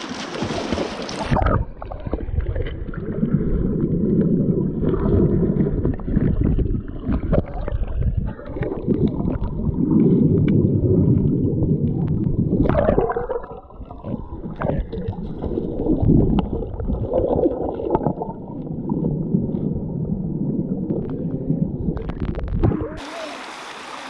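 Muffled gurgling and rumbling of stream water with irregular knocks, as heard with the microphone submerged. The higher sounds of the stream cut off about a second in and come back near the end, as the microphone goes under the water and comes out again.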